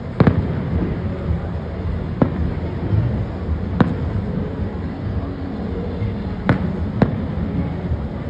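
Aerial firework shells bursting: five sharp bangs spread over several seconds, two of them close together near the end, over a steady low background rumble.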